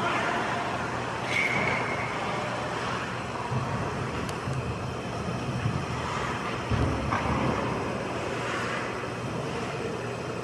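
Ice hockey game ambience in an indoor rink: a steady wash of noise with a few faint knocks and a brief faint high tone about a second and a half in.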